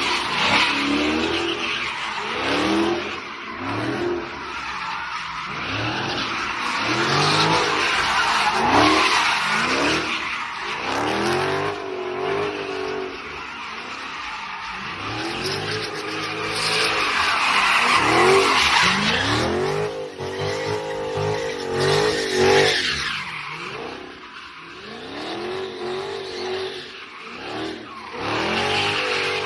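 A car's engine revving up and falling back again and again, about once every second or two, over tyres squealing and skidding.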